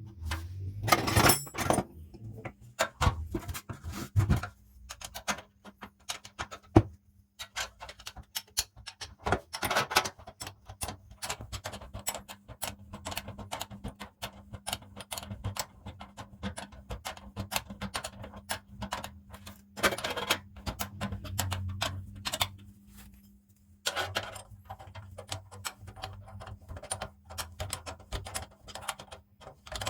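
Many quick, irregular clicks and taps of small metal parts being handled and fitted, with a few louder knocks, over a steady faint low hum.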